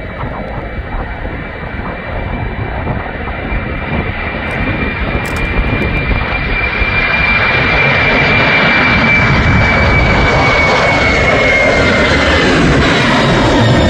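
Boeing 747-400 freighter's four jet engines at takeoff thrust: a loud rumble with a steady high whine, growing louder over the first half as the jet lifts off and climbs past. The whine drops a little in pitch near the end.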